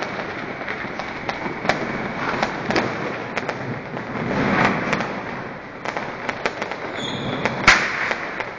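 New Year's Eve fireworks and firecrackers going off all around: a dense run of sharp cracks and bangs that swells about four and a half seconds in, with the loudest bang near the end.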